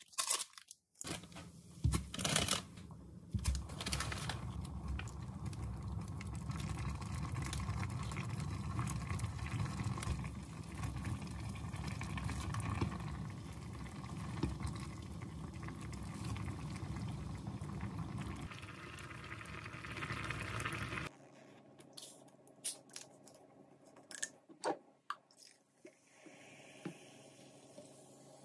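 Pot of ramyeon broth boiling and bubbling steadily while the noodles are stirred and lifted. About three quarters of the way in it stops abruptly, leaving a quiet room with a few light clicks and taps.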